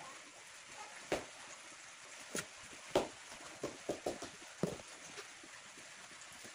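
Irregular sharp knocks and clicks of hand tools working on a car tyre, about seven in a few seconds: the old tubeless plug repairs being dug out of the sidewall.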